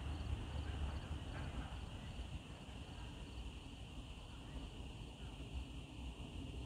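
Evening insects calling in a field: a steady high drone with a fainter pulsing chirp about three times a second, over a low rumble on the microphone.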